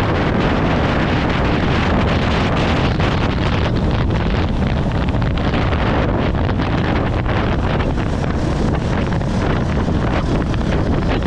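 Strong, steady wind noise buffeting the microphone of a moving vehicle, with the vehicle's low running noise underneath.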